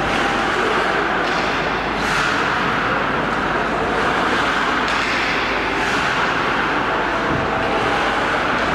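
Hockey skate blades carving and scraping the rink ice in a series of short swishes every second or few, over a steady rushing background noise.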